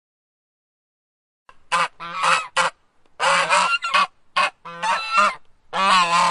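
Waterfowl honking: a rapid series of about ten harsh calls of uneven length, starting about a second and a half in.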